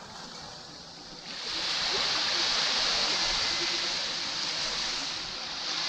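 Sea waves washing onto the beach close by: a quieter lull, then about a second in a wave surges up the shore in a long hissing wash that eases slightly near the end.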